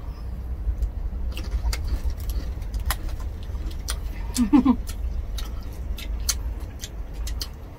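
Crunching and crackling as crisp roast pig skin is torn apart by hand and chewed, with sharp crackles scattered throughout over a low steady rumble. There is a brief murmur about four and a half seconds in.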